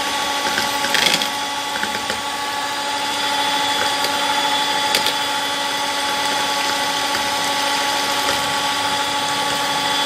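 Electric hand mixer running steadily at medium speed, its twin beaters whisking a thin cream-and-milk ice-cream base in a bowl, with a steady motor whine and a couple of brief clicks.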